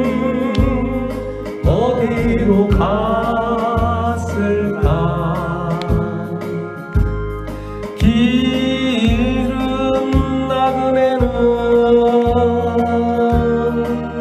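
A man sings into a hand-held microphone over a karaoke machine's backing track. The long notes waver, and a bass line pulses underneath.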